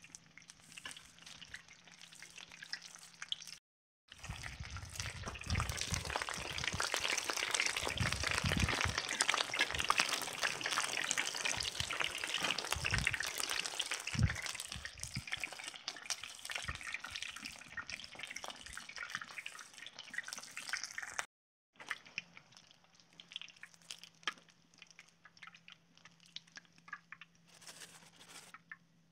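Battered chicken gizzards deep-frying in hot oil in a cast-iron pot lid: a dense crackling sizzle, like rain. It cuts out briefly about 4 s in, is loudest for the next quarter minute, then cuts out again and goes on much quieter.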